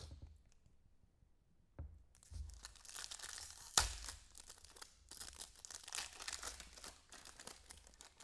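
A sports-card foil pack being torn open and its wrapper crinkled: a dense crackly rustle of many small clicks lasting about six seconds, with a knock about two seconds in and a sharp click near four seconds in.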